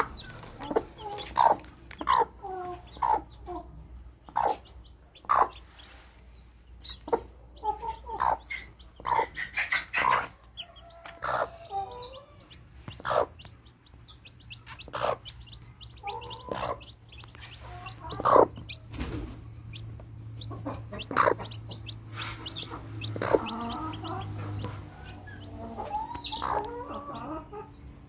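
Mother hen clucking in short, irregular clucks over her newly hatched chicks, with the chicks' high peeps in between.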